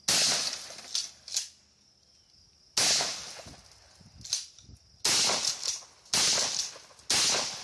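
Gunshots at an outdoor range: five loud shots a second or two apart, each with a short echo, and fainter cracks in between.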